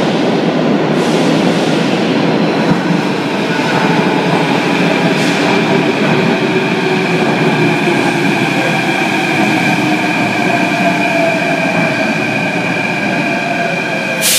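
Athens Metro Line 3 train running into the station and braking along the platform. There is a loud rumble of wheels on rail, and from about six seconds in a whine falls in pitch as the train slows. A short burst of high hiss comes right at the end.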